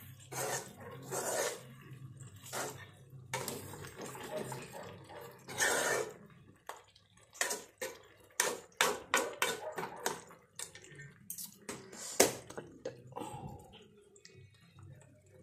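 A metal ladle stirs thick chicken roast gravy in an aluminium kadai, with wet scraping and slopping. Between about seven and twelve seconds in comes a quick run of sharp clinks and taps of the ladle against the pan, the loudest near the end of that run.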